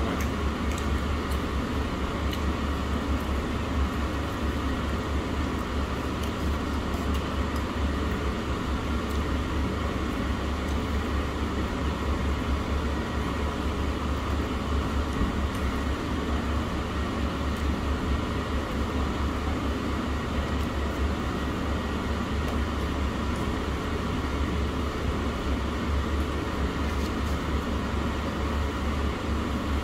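Steady low mechanical rumble with a hiss over it, unchanging throughout, with a few faint light clicks near the start.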